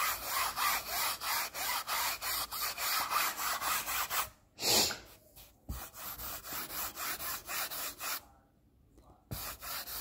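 Foam brush scrubbing acrylic paint back and forth across a textured canvas: a quick run of rasping strokes, about three a second, that stops twice briefly, with one short louder noise about halfway through.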